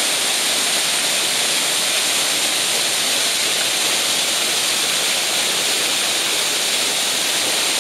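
Waterfall's thin curtain of water falling close by and splashing onto rock and a pool: a loud, steady, even hiss.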